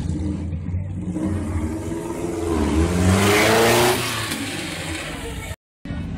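A tube-frame carcacha race car's engine running, then revved as the car pulls away, rising in pitch to its loudest about three to four seconds in before dropping off. The sound cuts out for a moment near the end.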